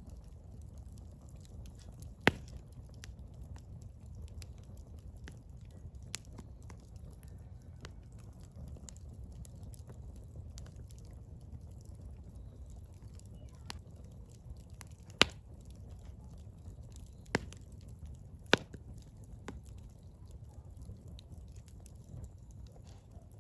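Firewood burning: a low steady rumble with scattered sharp crackles and pops, a few of them loud and sudden, one about two seconds in and three more in quick succession a little past the middle.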